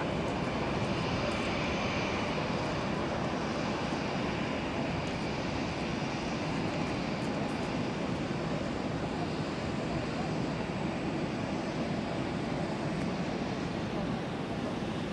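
Avro RJ100's four Lycoming LF507 turbofan engines running steadily as the jet comes in to land and touches down, a continuous jet rush with no distinct impacts.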